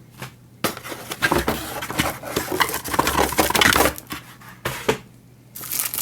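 Cardboard box and packaging being handled and pulled open: irregular rustling and scraping with sharp clicks and knocks, pausing briefly near the end before starting again.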